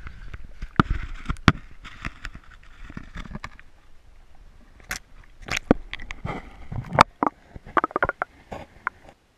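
Handling noise of a waterproof camera being dipped into the water through an ice-fishing hole: irregular knocks and scrapes against the housing over a hiss of moving water, with a run of quicker knocks near the end. The sound cuts off abruptly just before the end.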